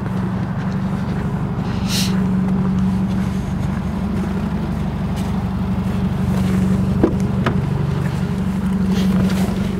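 Subaru WRX's turbocharged flat-four idling with a steady low drone. A couple of short clicks come about seven seconds in, as the driver's door is opened.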